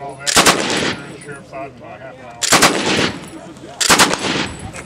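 M1918 Browning Automatic Rifle in .30-06 firing full auto in three short bursts, the second and third coming about two and a second and a half apart, each a quick run of shots.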